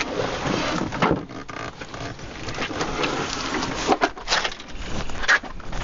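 Cardboard box rustling and scraping as a Toro battery walk-behind lawn mower is lifted out of it, with several sharp knocks as the mower bumps the box.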